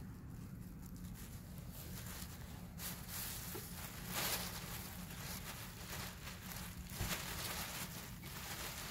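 Rustling and crinkling as a large kite's sail and the dry leaves beneath it are handled and the kite is lifted upright, with the loudest rustle about four seconds in, over a steady low rumble.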